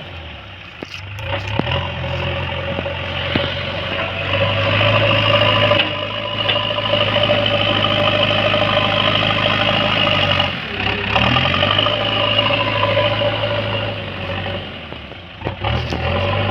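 JCB backhoe loader's diesel engine running under working revs, picking up about four seconds in and dipping briefly twice before coming back, with a few sharp clanks near the start.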